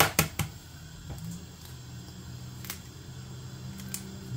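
An egg tapped sharply three times in quick succession against a stainless steel bowl to crack it, followed by a couple of fainter clicks of the shell as it is opened and the egg poured into the bowl near the end. A steady low hum runs underneath.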